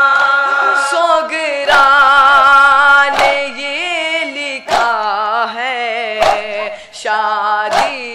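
Several young male voices singing a noha, an Urdu mourning lament, together in long held notes with a wavering pitch. A sharp slap of hands beating on chests (matam) lands about every one and a half seconds, keeping the beat.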